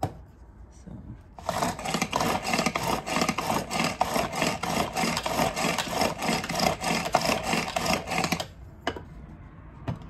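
Pull-cord manual food chopper being yanked repeatedly, its cord and spinning blades whirring and rattling with about five quick pulses a second as it chops pickle slices. The rattling starts about a second and a half in and stops after about seven seconds.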